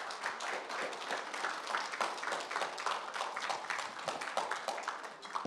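A congregation applauding: many hands clapping together in a steady patter.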